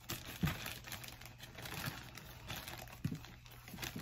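Meal-kit ingredient packaging being handled: a patter of light clicks and rustling, with a couple of soft knocks as items are moved.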